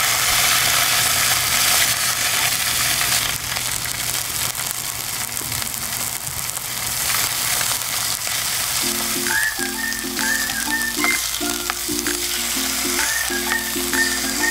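Slices of pork jowl sizzling as they fry in a pan, loudest over the first few seconds. About nine seconds in, light background music with a short repeating melody comes in over the sizzle.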